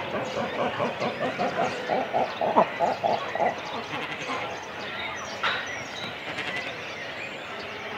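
Cormorants calling at the nest in a breeding colony: a rapid run of guttural croaking calls, about four a second, for the first three and a half seconds. After that comes a quieter, steady background of the colony's calls, with other birds calling now and then.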